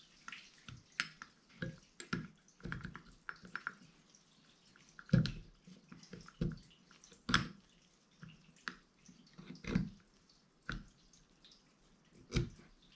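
Irregular small metal clicks and taps as new brake pads are fitted into a Husqvarna TE150 front brake caliper, with a few louder knocks spread through.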